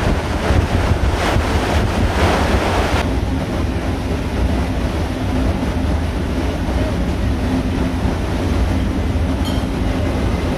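Wind buffeting the microphone over the rush of a cruise ship's churning wake; about three seconds in the hiss cuts off abruptly, leaving a steady low rumble with a faint hum from the ship's engines and machinery.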